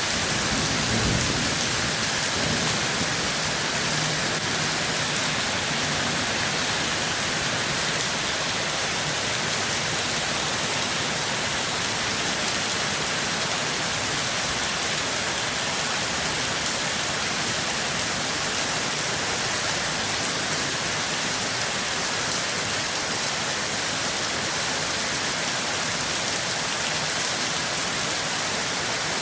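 Steady, even rain, with a brief low rumble about a second in.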